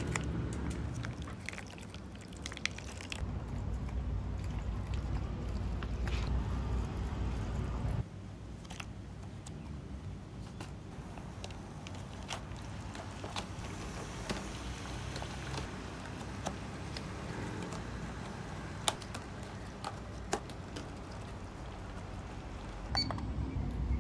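Handling a self-heating meal kit: a plastic water pouch is cut open and its water poured over the heating pack, and the plastic food tray is set into its heating box, with scattered clicks and taps. A low rumble in the background cuts off about eight seconds in.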